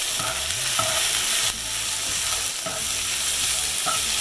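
Diced onion, carrot and potato sizzling in hot oil in a skillet while a plastic spatula stirs them: a steady frying hiss with a short scrape of the spatula across the pan every second or so.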